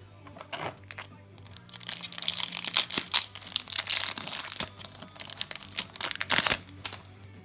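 Foil booster pack wrapper crinkling and being torn open, loudest from about two seconds in until nearly five seconds, with another short burst of crinkling about six seconds in.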